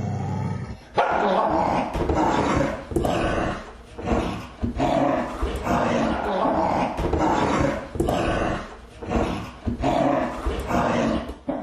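Dogs growling and snarling in a run of rough, aggressive bouts, each about a second long with short breaks between, starting sharply about a second in.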